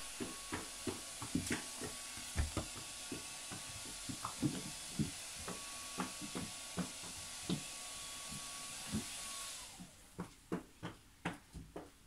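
Irregular light knocks and clacks of small shoes being set onto the shelves of a wooden shoe rack, over a steady hiss that drops away near the end.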